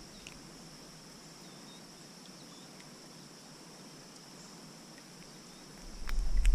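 Steady high-pitched insect trill, with a few faint clicks. Near the end a low rumble rises sharply.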